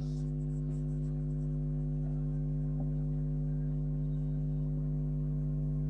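Steady electrical hum: a low buzz with a ladder of even overtones that holds without change. Faint scratching of a marker on a whiteboard comes through early on.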